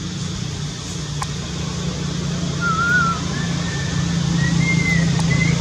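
A steady low motor-like hum that grows louder. From about halfway, a high, wavering whistle-like call runs over it.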